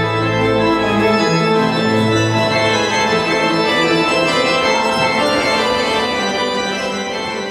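Church pipe organ playing sustained full chords, with deep pedal notes in the first couple of seconds. It grows slightly softer near the end.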